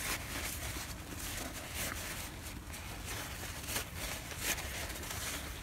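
Faint rustling and rubbing of a paper towel as an oily safe-lock wheel is wiped by hand, with a few soft brushes standing out.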